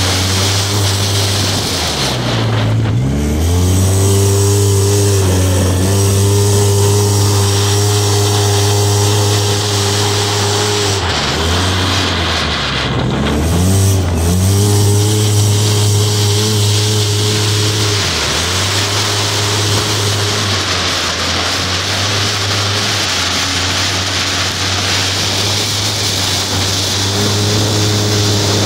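Polaris RZR 800 side-by-side's 760cc four-stroke twin engine running hard at high, steady revs, with wind and dirt noise. The revs drop and climb back about two seconds in, and twice more in quick succession around eleven to fourteen seconds in, as the throttle is lifted and reapplied.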